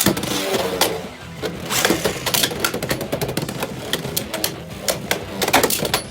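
Irregular sharp plastic-and-metal clicks and clatters of Beyblade spinning tops, over background music.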